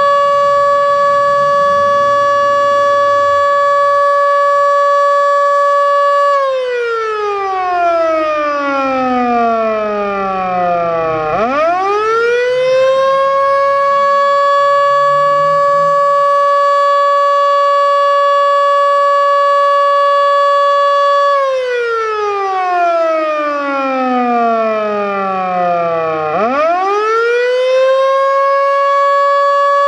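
Federal Signal Model 2 electromechanical storm siren sounding its Attack signal. It holds a steady high wail, then falls in pitch for about five seconds and sweeps quickly back up to full pitch, and does this twice. The siren's bearings are, in the uploader's words, already not too good.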